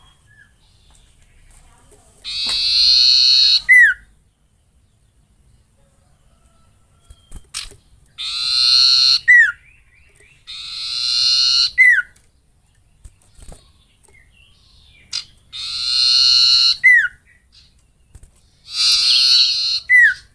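A songbird, the 'sirtu' kept for singing contests, giving five harsh, buzzing calls, each about a second and a half long and each ending in a quick falling whistle.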